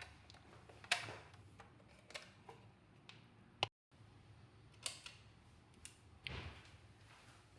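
Kitchen utensils and dishes being handled: about five scattered sharp taps and clicks with quiet between them.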